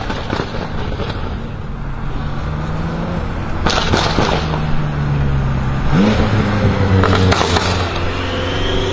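BMW M5 F10's twin-turbo V8 with catless downpipes running at low revs. There are a few sharp exhaust cracks about 4 seconds in and again near 7 seconds, and the engine note steps up about 6 seconds in as it picks up revs.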